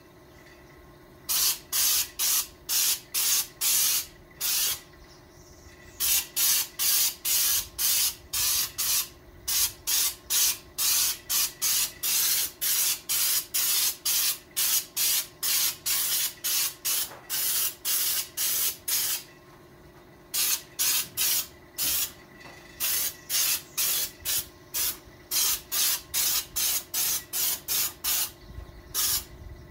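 Air-fed spray gun with a canister attached, spraying paint in quick short hissing bursts, about two a second, with a few pauses of a second or so. A faint steady hum runs underneath.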